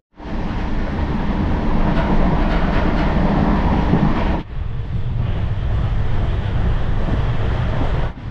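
Jaipur Superfast Express train running along the line: a steady rumble and rattle of rolling stock. About halfway through the sound changes abruptly to a duller, less bright rumble.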